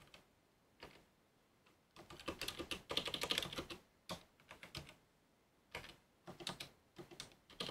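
Typing on a computer keyboard: a few single keystrokes, then a fast run of keys about two seconds in, followed by short flurries of keystrokes with pauses between them.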